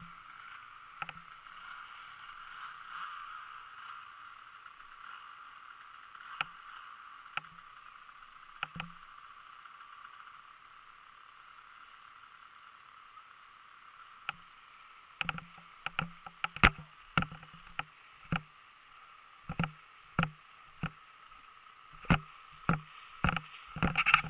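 Faint steady hiss, then from about fifteen seconds in a run of irregular knocks and thumps, roughly one or two a second and getting louder near the end: a rider's footsteps and body movement through tall grass jolting the helmet-mounted camera.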